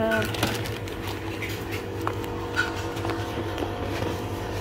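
Steady low machinery hum of a supermarket interior, with a few faint clicks and knocks from goods being handled.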